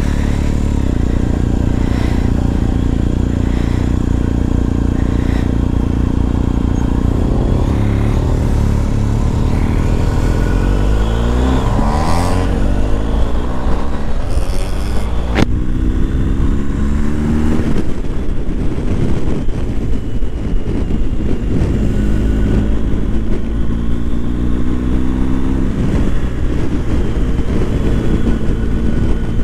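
BMW R1250 GS motorcycle's boxer-twin engine under way, steady at first, then climbing in pitch in three long pulls from about a third of the way in, each dropping back at a gear change.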